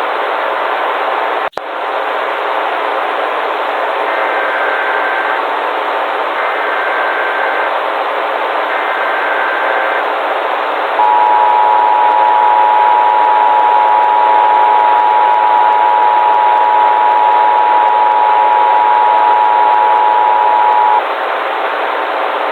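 Emergency Alert System tones over steady static hiss. The hiss drops out briefly near the start, then three roughly one-second bursts of warbling SAME header data sound, followed by the loud EAS two-tone attention signal held steady for about ten seconds.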